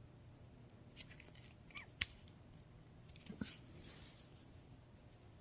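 Faint small plastic clicks and scraping as the emergency mechanical key is worked out of a Kia key fob, with one sharp click about two seconds in and a soft scraping rustle a little later.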